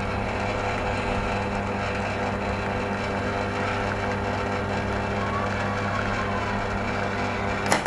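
Simonelli Appia II espresso machine's rotary pump running with a steady hum while an espresso shot is brewing, then cutting off with a click near the end as the shot is stopped.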